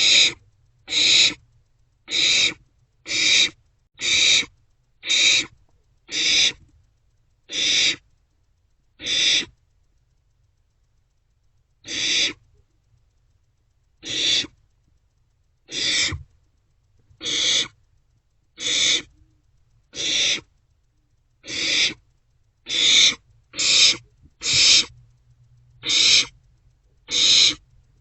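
Barn owlets giving repeated rasping hiss calls, each about half a second long, roughly once a second, with a pause of a few seconds partway through. These are the snoring begging calls young barn owls make when food is about.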